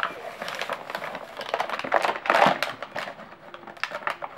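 Cardboard packaging being torn and pulled open, with the stiff plastic blister pack crinkling and crackling, in a quick irregular run of rustles and scrapes.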